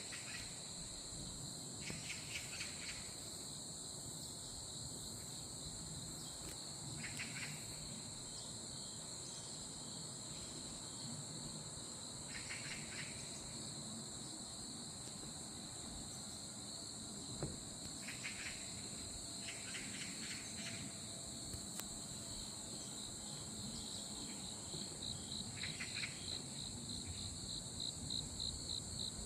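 A steady high chorus of insects, with a shorter, lower pulsed call breaking in every few seconds. Near the end the high trill turns into a rapid pulsing.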